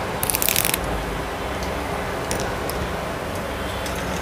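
Cumin seeds sizzling and crackling in hot oil in a small tempering pan, with a dense run of crackles about half a second in and a few scattered pops later. This is the start of a tempering (phodni), the seeds frying in the oil.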